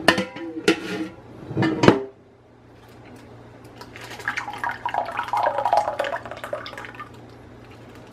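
Sharp knocks and plastic-bag rustling in the first two seconds, then a milky coconut mixture pouring from a glass measuring cup into a plastic bag for about three seconds.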